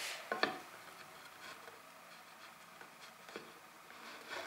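Wheel marking gauge handled and set against a wooden board: a couple of sharp clicks and knocks just under half a second in, then faint scratching as the gauge's cutting wheel scores a line, with single taps about three and a half seconds in and near the end.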